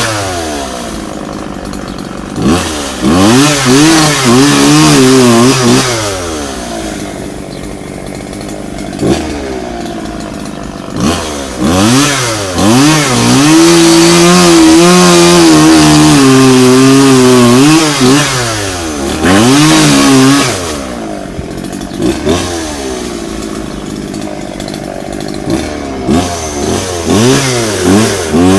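Chainsaw engine revved up to full throttle in several long bursts, dropping back to a lower idle between them, as it cuts into a dead tree.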